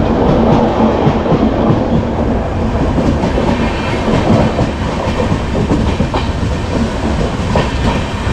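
Pallavan Superfast Express passenger coach running along the track, heard from inside the coach. The rumble of wheels on rail is steady, with sharp clicks as the wheels pass over rail joints.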